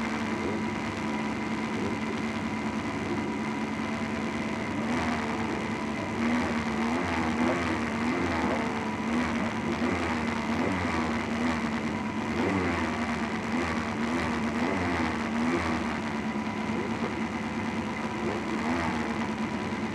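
Formula Ford race car's engine idling at a standstill, heard from the onboard camera, its pitch wavering slightly now and then.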